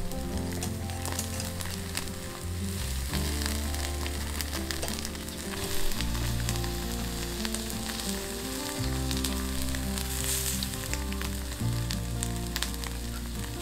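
Cutlassfish fillets sizzling on a wire grill over a charcoal brazier, a steady hiss with many small crackles and pops. Soft background music with low held notes plays underneath.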